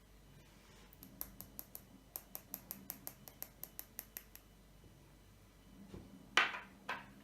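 White fluffy slime being kneaded and pressed by hand: a run of quick, sharp little clicks and pops, about five a second, as trapped air bubbles burst, then two louder squishes near the end.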